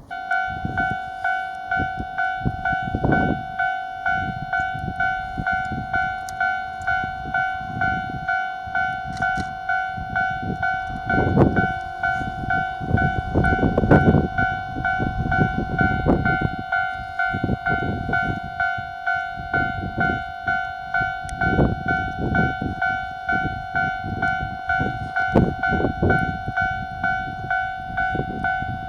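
Japanese railway level-crossing warning bell starting up and ringing, a steady two-tone ding repeated about every two-thirds of a second. Low rumbling noise swells underneath several times, strongest around the middle.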